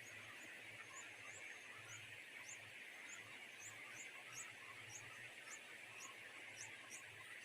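Faint, short, high chirps from nestling birds, repeated a few times a second, over a steady background hiss.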